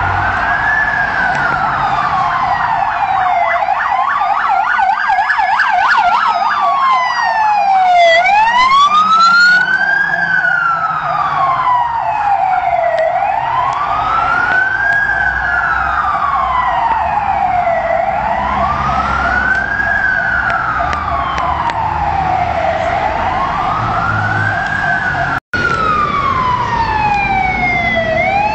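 Fire truck siren wailing, sweeping slowly up and down in pitch about every five seconds. A second, faster-warbling siren overlaps it for the first several seconds, with a low traffic rumble underneath. The sound cuts out for an instant near the end.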